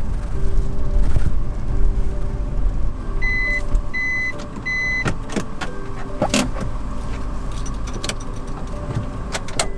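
Subaru Sambar kei truck heard from inside the cab, its engine running at low speed as it parks. Three short high beeps sound about a second apart, followed by a run of clicks and clacks from the cab.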